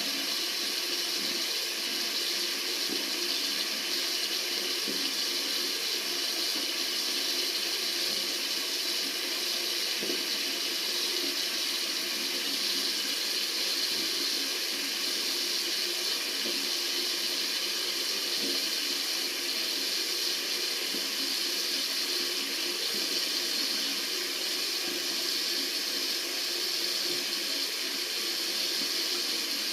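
Water running steadily from a tap into a sink, a continuous even rush.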